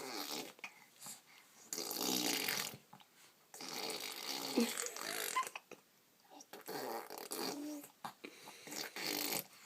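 A five-month-old baby blowing raspberries, buzzing his lips to make fart-like sounds in several bursts of a second or two each, with short pauses between.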